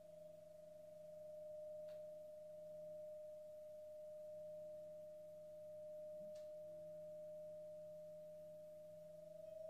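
Quiet organ tone held steady and nearly pure, with a softer low tone sounding beneath it, drifting slightly up in pitch near the end. Two faint taps come about two seconds in and again after six seconds.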